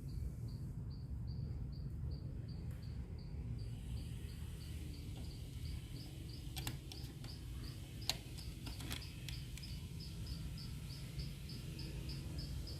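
Steady insect chirping: a short high chirp repeating evenly about three times a second over a low hum, with a few faint clicks near the middle.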